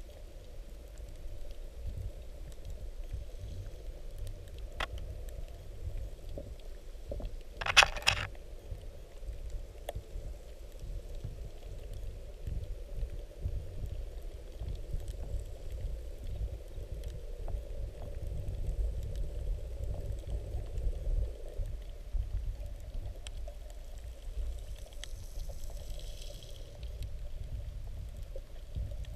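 Underwater ambience picked up through a camera housing: a steady low rumble of moving water with scattered sharp clicks, and one loud crackling burst about eight seconds in.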